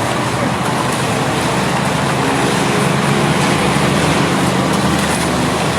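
A vehicle engine running amid steady road traffic noise; its low hum grows stronger about two seconds in and eases near the end.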